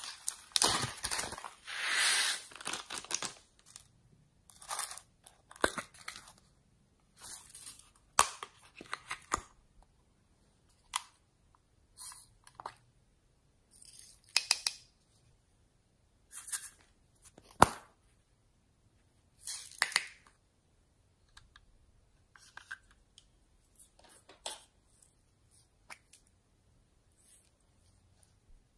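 Hands squishing and stretching slime, making irregular crackles and pops with a few sharp clicks, loudest in the first few seconds.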